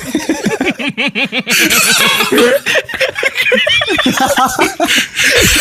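Several people laughing hard together in rapid, repeated 'ha' bursts, their voices overlapping.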